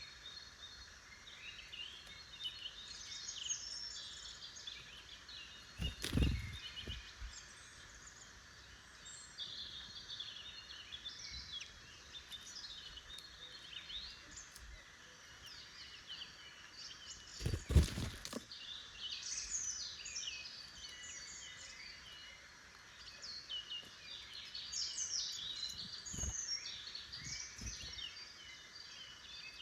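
Several woodland songbirds singing and calling in short, overlapping chirping phrases, over a faint steady background hiss. Two low thumps break in, about 6 and 18 seconds in, the second the loudest sound, with a softer one near the end.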